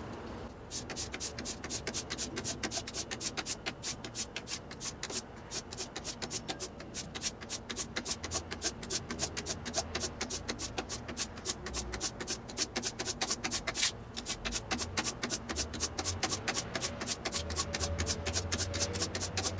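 Steel plane iron from a Stanley Bailey No. 7 hand plane being rubbed back and forth on 600-grit wet/dry sandpaper, a fast rhythmic rasp of several strokes a second with brief pauses about 5 and 14 seconds in. This is the blade being sharpened on the finer grit.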